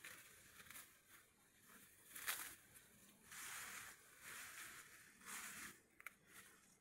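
Faint rustling of rice stalks and grass as someone moves and works with their hands among them, in several short bursts of about half a second, with a sharper crackle about two seconds in.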